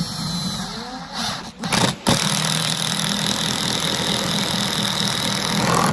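Makita cordless impact driver driving a shank wood screw through a pine block into a second piece. It spins the screw in at first, pauses briefly, then runs louder from about two seconds in, hammering as the screw draws the block tight. It cuts off suddenly at the end.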